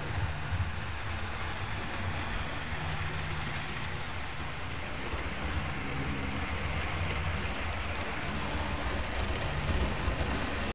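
HO-scale model trains running on the layout: a steady whir of the small motors and rumble of wheels on the track, with a low hum underneath.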